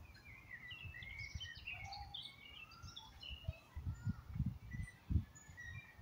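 Several small birds chirping and singing in short, quick phrases, busiest in the first half. Irregular low thumps and rumbles on the microphone come in more strongly in the second half, with the loudest a little after the fifth second.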